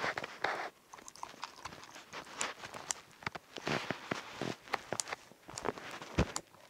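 Slime in a plastic tub being poked and stirred with a tool: irregular squelches, clicks and small pops at uneven intervals.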